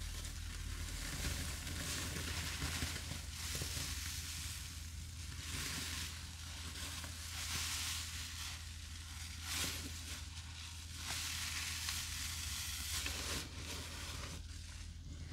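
Wet, soapy sponges loaded with cleanser paste being squeezed and worked by gloved hands: a fizzing, crackling squish that swells and eases with each squeeze, every second or two.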